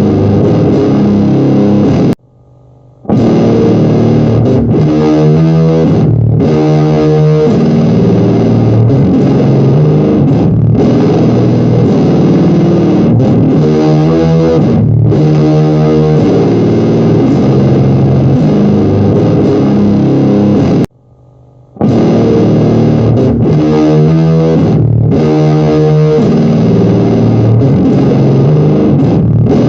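Rock music with distorted electric guitar, playing steadily and cutting out abruptly for about a second twice, about two seconds in and again about twenty seconds later.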